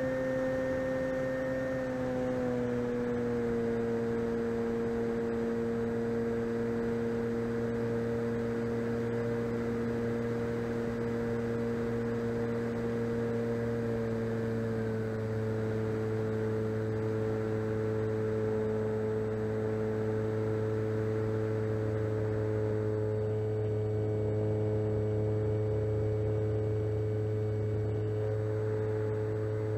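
Electric motor and propeller of a 6S-powered radio-control Cessna 150 model running steadily at cruise throttle, a humming tone over the rush of air. The pitch drops a little about two seconds in and again about halfway through as the throttle is eased.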